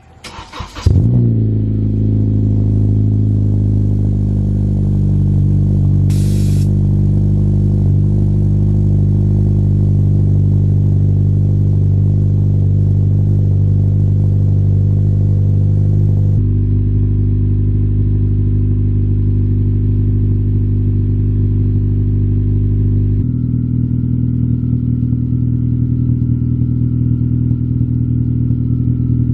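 A 2014 Honda Civic Si's 2.4-litre four-cylinder engine, fitted with an Invidia N1 cat-back exhaust, is started: it cranks briefly, catches with a flare about a second in, then settles into a steady idle. The idle's tone changes abruptly twice in the second half.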